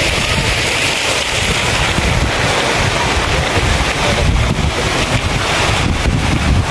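Fountain water jets splashing steadily into a pool basin, with wind buffeting the microphone.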